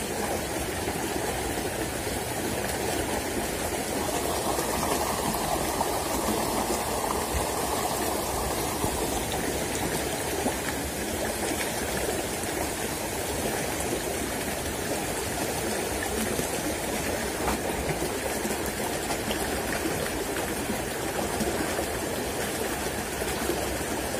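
Shallow river flowing over stones, a steady watery rush that swells a little about four seconds in and settles again a few seconds later.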